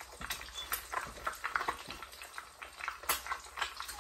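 Eggs frying on low heat in bacon fat under a pan lid, the fat crackling with irregular sharp pops.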